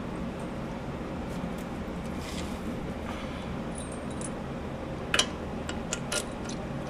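Small metal clicks and clinks of sway bar end-link hardware (bolt, washers, spacer) being worked into place by hand at the lower control arm, with a sharp click about five seconds in and a few lighter ones just after, over a steady low hum.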